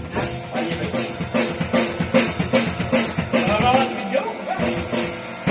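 Music with a drum kit keeping a steady beat, about five hits every two seconds, over pitched instruments.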